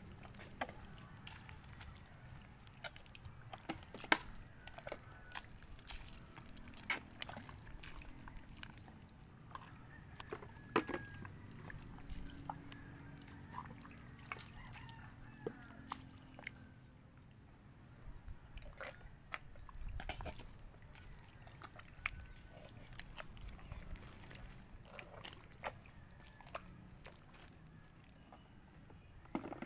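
A rooster crowing faintly a few times over a quiet outdoor background, with scattered sharp clicks and knocks from people moving through mud.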